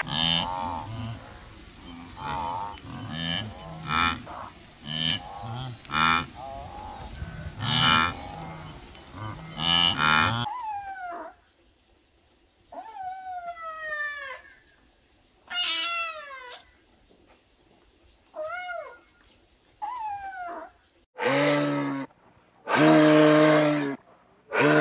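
Blue wildebeest calling in a quick series of short nasal grunts, about one a second, for the first ten seconds. Then a tabby kitten mewing, about seven thin calls that each fall in pitch. Near the end come two long, low animal calls.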